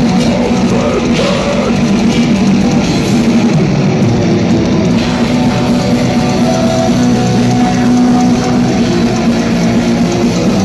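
Live metal band playing loud, with distorted electric guitars in a dense, unbroken wall of sound.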